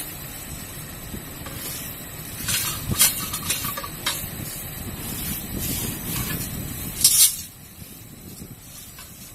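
Hot steel being quenched in a water tank: a steady rumbling hiss, with two loud bursts of hissing steam about two and a half and seven seconds in. The rumble dies down after the second burst.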